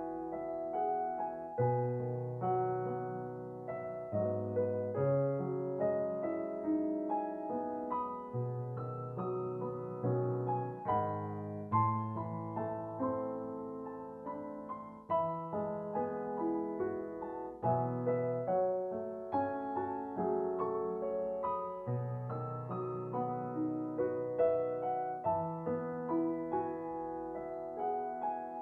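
Background piano music: a slow, gentle piece of single notes and chords over a low bass line.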